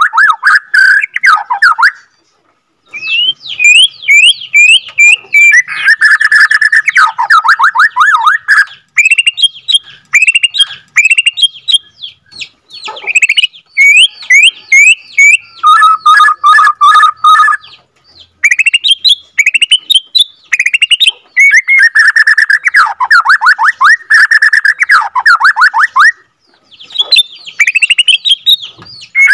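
Bornean white-rumped shama (murai batu) singing a long, loud song of rapid trills and rising whistled notes, with short pauses about two seconds in and near the end.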